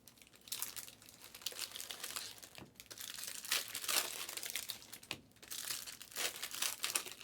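Plastic wrapping of Panini Select trading card packs crinkling and tearing as it is ripped open by hand, in irregular crackles.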